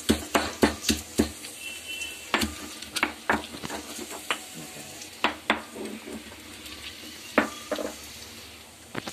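Stone pestle pounding chopped ginger and garlic in a stone mortar: sharp knocks about three a second at first, then irregular ones. Under them the steady sizzle of onions frying in oil.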